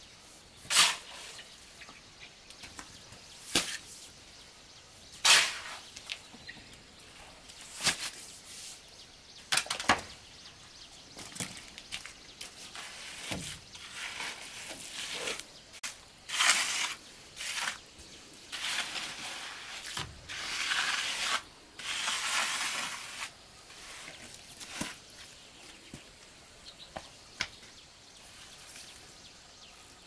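Work with a hand tool: single sharp strikes about every two seconds, then a longer run of scraping strokes that fades to a few light taps near the end.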